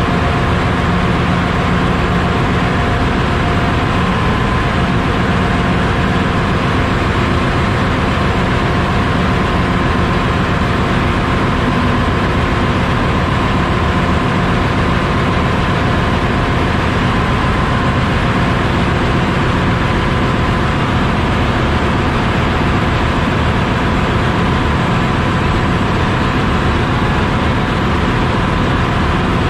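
Loud, steady machinery noise in a ship's diesel engine room, a dense unbroken rumble with a faint steady whine near the middle of the range.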